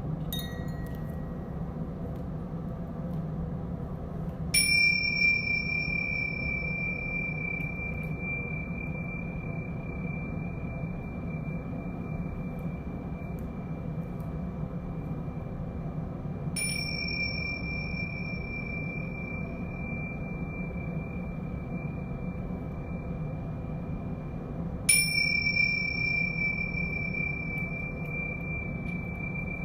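A bright metal chime or bell struck three times, each strike ringing a clear high tone that lingers for many seconds while a higher overtone fades within a few. A steady low hum of the gong runs underneath.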